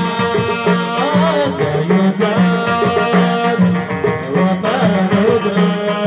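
Live Amazigh folk music: a male voice singing over a plucked banjo and lute, with hand drums keeping a steady beat.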